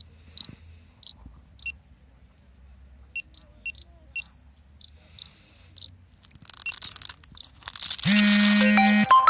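Personal radiation detectors, a Polimaster PM1703GNA and a D-tect MiniRad-D pager, chirping short, irregular high beeps, about one to three a second, as they pick up gamma radiation from granite. Near the end, loud music comes in.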